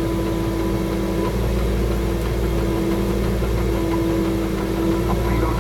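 Mini excavator running steadily while working a brush mower head, with a steady whine that cuts off just before the end.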